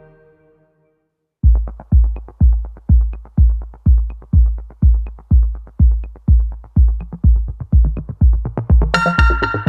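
Background electronic music: an earlier track fades out to a moment of silence, then a steady kick-drum beat of about two beats a second starts a second and a half in, with synth chords coming in near the end.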